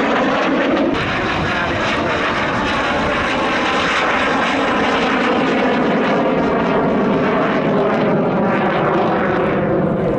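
Dassault Alpha Jet's twin turbofan engines running at high power as it flies a display. It is a steady, loud jet noise with several whining tones that shift slightly in pitch as it manoeuvres.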